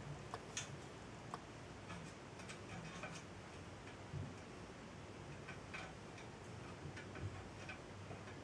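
Small, faint metallic clicks and taps at irregular intervals as a screwdriver and small screws and nuts are worked against the sheet-metal parts of a model steam traction engine being assembled.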